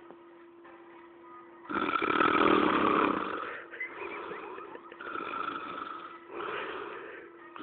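A person snoring loudly and raggedly in sleep. A long harsh snore comes about two seconds in, followed by three shorter ones, over a faint steady hum.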